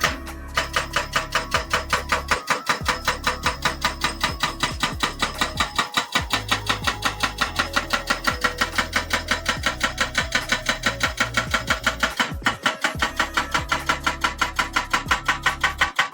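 Background music with a fast, even percussive beat of about five or six hits a second over a bass line that steps in pitch, breaking off briefly a few times.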